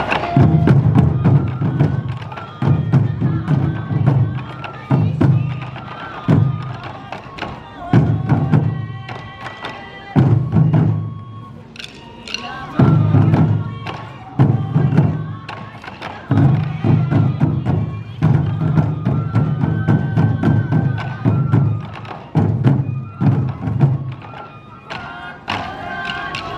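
Sansa odori festival music: taiko drums beaten in repeated groups of heavy strokes, with a high bamboo flute melody over them.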